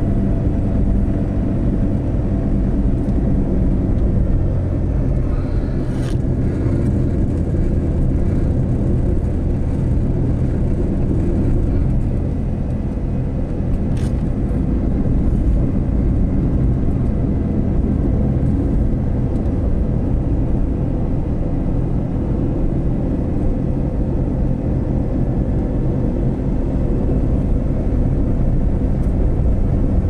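A car driving along a road: steady engine hum over tyre and road rumble.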